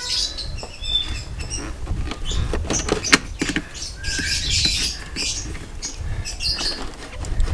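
Water pump pliers clicking and scraping against a spring-loaded hose clamp on a heater hose, with scattered small metallic clicks and rustling over a low rumble.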